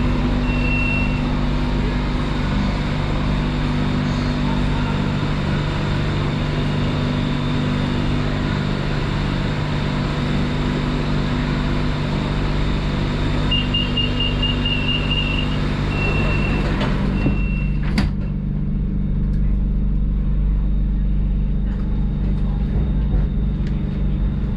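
BTS Skytrain car standing at a station with its doors open: a steady electrical hum under wide platform and car noise, with high door-warning beeps from about 13 to 17 seconds in. The doors then shut with a sharp knock about 18 seconds in, and the sound turns duller, leaving only the hum.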